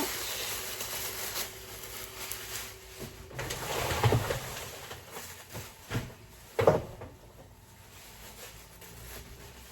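Groceries being unpacked: rustling of shopping bags and packaging, with two short knocks about six and seven seconds in as items are handled and set down.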